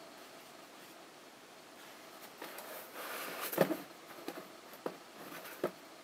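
Handling noise on an old radio's open chassis: a few scattered clicks and knocks, the loudest about three and a half seconds in, over a low hiss.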